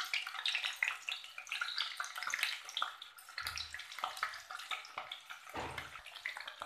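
Paneer cubes sizzling and crackling in hot mustard oil in a kadhai as more cubes are dropped in to fry. Two dull low thuds stand out, about three and a half and five and a half seconds in.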